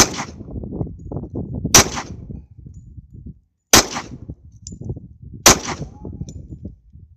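Four shots from a Taurus 24/7 G2 .45 ACP pistol, fired at a steady pace about two seconds apart, each a sharp crack with a short echo trailing off.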